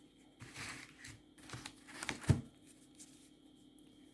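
Rustling and handling of packaged fireworks being taken out of a selection box, ending in a sharp knock a little after two seconds.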